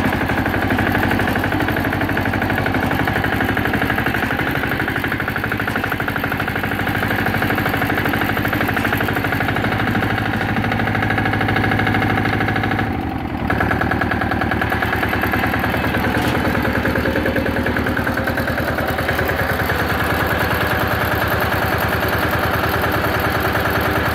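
Ford T-1000 garden tractor's replacement engine running steadily with a rapid, even exhaust beat. About halfway through the sound dips for a moment, then the engine settles back to a steady run at a slightly different note.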